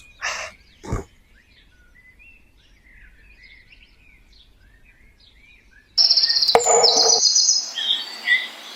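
Two knocks, then faint birds chirping. About six seconds in, a much louder sound with high steady whistling tones cuts in and continues, with chirps over it near the end.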